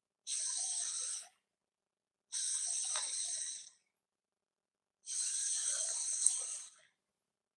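A person breathing heavily, three long breaths about two and a half seconds apart, each a rough hiss.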